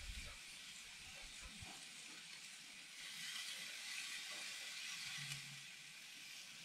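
Scotch fillet steak sizzling on hot grill grates while held pressed down with a spatula for even sear marks: a faint, steady hiss that swells a little about three seconds in.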